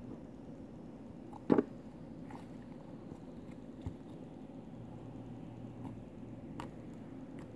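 Fluffy slime being squeezed and poked by hand: soft squishes and small scattered pops and clicks, with one much louder short sound about a second and a half in.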